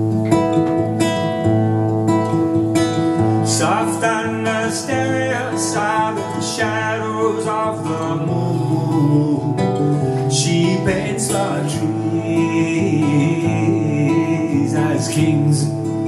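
A man singing to his own acoustic guitar, the guitar playing chords throughout while his voice comes in phrases.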